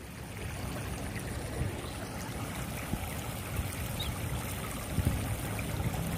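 Steady low rumble and hiss, with a few faint clicks.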